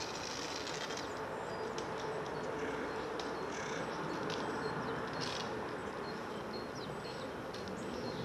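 Outdoor ambience: a steady background hiss with scattered short, high chirps of small birds.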